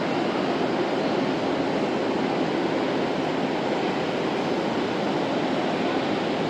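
Rain hitting the roof of a large building, heard from inside as a steady, even hiss.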